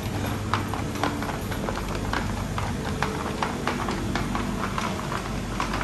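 Quick irregular clicks and taps, several a second, over a steady low hum.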